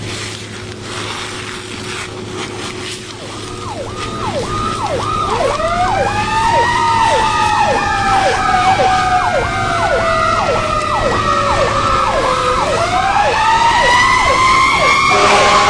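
Emergency vehicle sirens, getting louder. A fast falling yelp repeats about twice a second over a slow wail that rises, sinks over several seconds, then rises again. A steady multi-tone horn blast starts just before the end.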